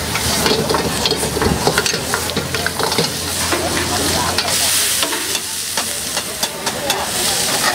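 Wok stir-frying: a metal ladle and spatula scrape and clank against a steel wok over a high gas flame, with steady sizzling. About four to five seconds in comes a louder burst of hissing sizzle as the wok flares and steams.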